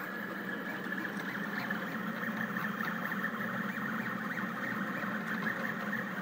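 Rostock delta 3D printer running mid-print, its stepper motors driving the belt carriages with a steady high whine over a low hum.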